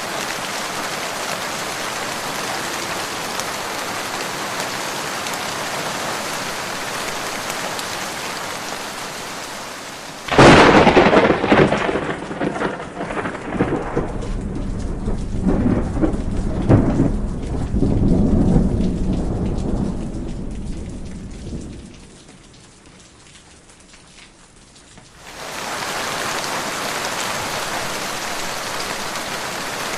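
Steady heavy rain. About ten seconds in, a sudden close thunderclap cracks and then rolls into a rumble for about ten seconds, fading away. The rain comes back a few seconds later.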